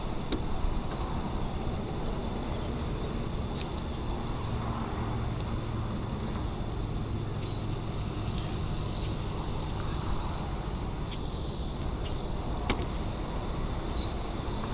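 Outdoor background: a steady low rumble, with a high, faint chirp repeating about three times a second.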